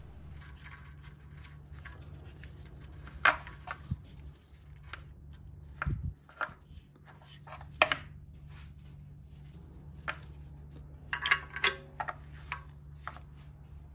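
Scattered metallic clicks and taps of hand tools while a new upstream oxygen sensor is threaded into the exhaust, with a quick run of clicks about eleven seconds in, over a steady low hum.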